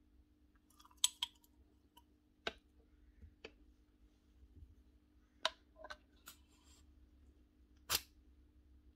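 Metal parts of a Bosch GBH 8-45 D rotary hammer's tool holder assembly clicking and clinking as they are handled and fitted together by hand. The clicks are sharp and spread out, the loudest about a second in and near the end, over a faint steady hum.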